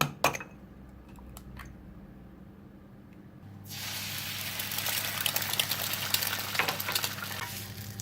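A few clicks and knocks, then food starts sizzling in a hot pan about three and a half seconds in, with a steady crackle and a low hum underneath.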